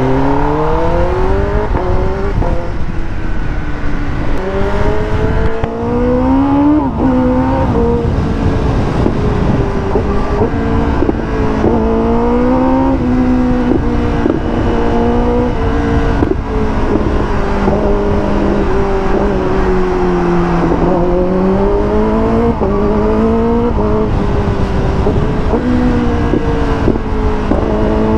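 Kawasaki ZX10R superbike's inline-four engine pulling away from idle and then accelerating in repeated bursts. The revs climb and drop sharply at each gear change or throttle lift, about a dozen times, over a steady rush of wind on the microphone.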